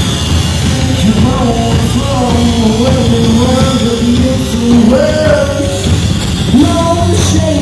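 Live rock band playing, with electric guitar, and a singer holding long sung notes from about a second in.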